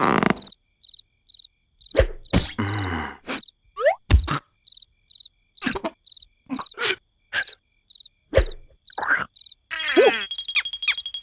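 Cartoon soundtrack: a cricket chirping in an even rhythm, a little over two chirps a second, under a string of short cartoon knocks and thuds and a few quick sliding squeaks. A steadier high tone comes in near the end.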